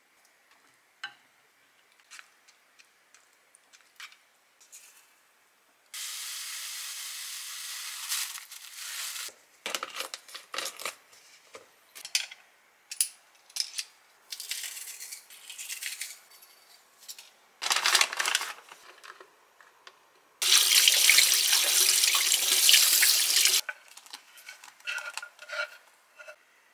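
Kitchen cooking sounds: water running for a few seconds twice, the second time louder, between light clicks and knocks of utensils against a pot.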